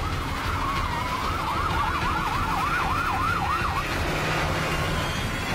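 Police car siren sweeping up and down over a low engine and road rumble. It speeds into a fast yelp of about four sweeps a second about two seconds in, then cuts off near four seconds in.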